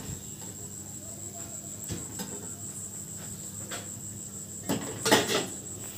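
Slotted steel ladle clinking and scraping against a steel kadai as fried bondas are lifted out of the hot oil, a few light clinks and then the loudest clatter about five seconds in. A steady high-pitched whine runs underneath.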